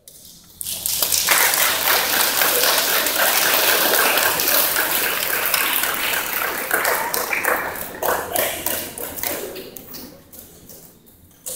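Audience applauding, a dense patter of many hands clapping that starts under a second in, holds steady, and dies away over the last few seconds.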